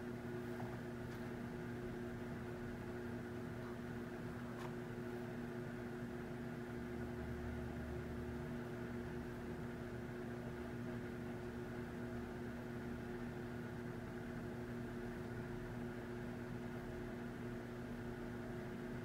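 Steady low electrical hum over a soft hiss of room noise, with a few faint ticks.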